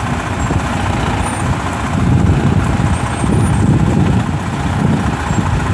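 Semi truck's diesel engine running as the tractor-trailer creeps forward at low speed, growing louder about two seconds in.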